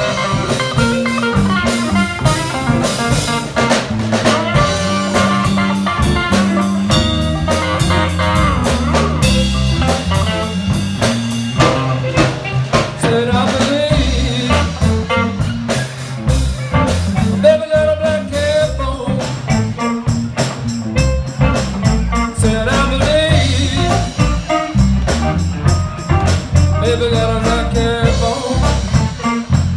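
Live blues band playing an instrumental stretch: amplified blues harmonica wailing and bending notes over electric guitars, electric bass and a drum kit.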